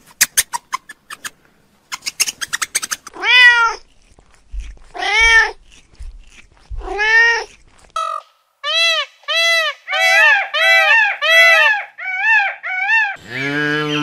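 A cat meowing: three drawn-out meows about two seconds apart, then a quick run of shorter meows, after a few seconds of light clicking. Near the end a calf gives one low moo.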